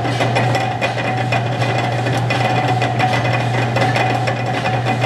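Belt-driven line-shaft machinery running: overhead shafting and flat leather belts turning a lathe, a steady mechanical hum with a constant whine and irregular light clatter.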